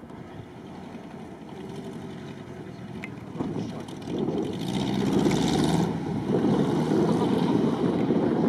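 Off-road vehicle's engine running as it drives the course, getting louder from about three and a half seconds in.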